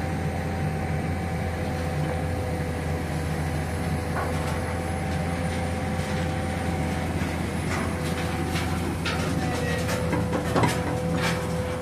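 Hydraulic excavator's diesel engine running steadily under load as it lifts a steel pipe slung from its bucket, with a constant whine over the low hum. From about eight seconds in, a run of sharp knocks.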